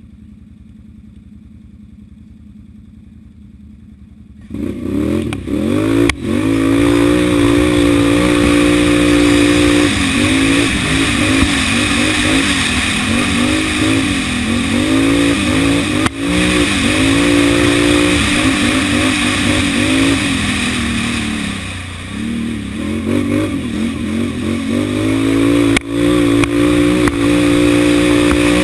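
Can-Am quad's engine, heard close up from on board: low and quiet at first, then about four and a half seconds in it comes in loud and runs at high revs under hard throttle, its pitch climbing and dropping again and again as the rider shifts and lifts off. About two-thirds of the way through it eases off for a few seconds, then pulls hard again.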